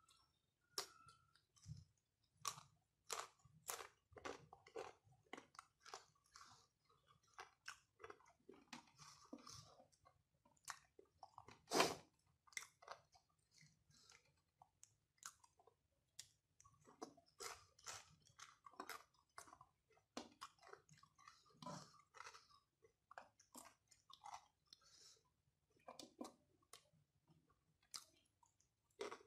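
A person chewing and biting crunchy food close to the microphone: rice eaten by hand with raw cucumber and carrot slices. Irregular sharp crunches run throughout, the loudest about twelve seconds in.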